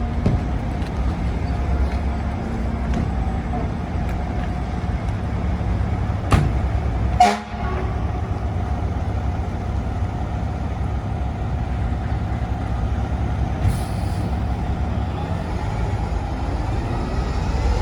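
Fire truck's diesel engine running with a steady low rumble amid street noise, with two short sharp knocks about six and seven seconds in and a pitch starting to rise near the end.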